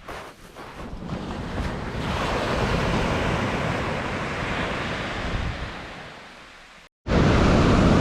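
Surf on a pebble beach: a wave swells and breaks about two seconds in, then washes back and slowly fades. Near the end the sound cuts abruptly to louder, steady rushing noise.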